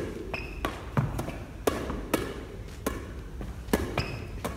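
A ball being knocked up into the air again and again by hand, a sharp slap at each hit, roughly every half second, with a little echo from a sports hall.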